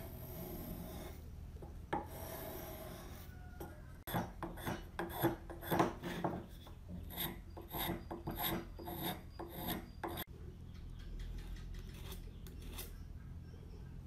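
Metal spokeshave shaving curls off a wooden edge: quick scraping strokes, two or three a second, loudest from about four seconds in, then stopping near the end.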